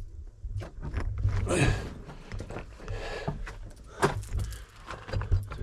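A person crawling through a tight lava-tube passage: irregular scraping and rustling of body and clothing against rock, with breathing and low knocks of the camera being handled.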